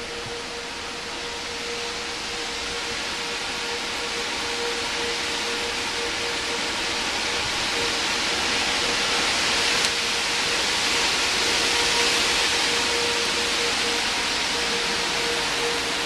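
Sentry outdoor warning siren sounding a single steady tone that waxes and wanes, the alert signal for a severe thunderstorm warning. Loud wind noise over it grows louder toward the middle.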